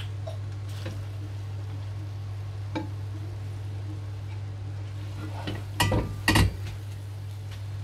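Metal spoon stirring steamed rice in a cooking pot, with a few light clicks and two loud metal clanks against the pot about six seconds in, over a steady low hum.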